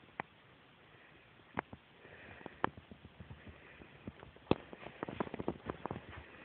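Scattered light clicks and knocks from someone walking through a carpeted house while handling a camera phone. They come sparsely at first, then thickly from about four and a half seconds in.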